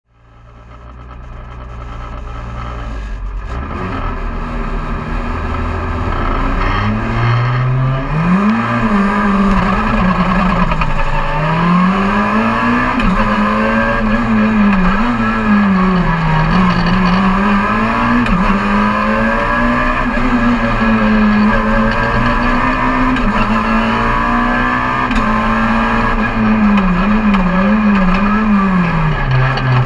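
Rally car engine heard from inside the cabin, revving up through the gears and dropping off again over and over as it is driven hard through the stage, with a quick run of short up-and-down revs near the end. The sound fades in over the first few seconds.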